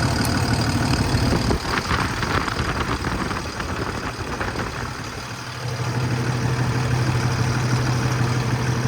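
A Cummins 6.7 ISB diesel idling in a 2018 International 4400. About a second and a half in, the sound changes with a short rattly stretch, then settles into a steady low hum.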